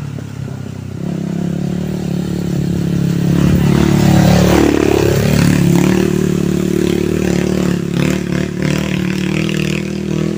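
Small motorcycle engine approaching and passing close by on a dirt road, loudest about four to five seconds in, with the engine sound going on steadily afterwards.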